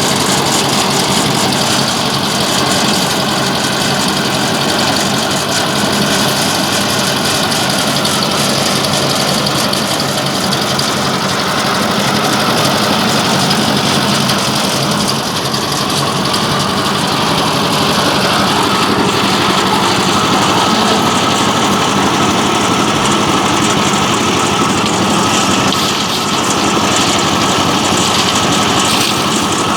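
Concrete mixer's engine running steadily under continuous load.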